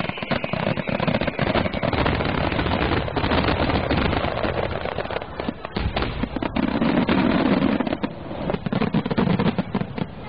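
Fireworks finale barrage: a dense, unbroken run of shell bursts and crackling reports, many per second. Heavier booming bursts come about two-thirds of the way through.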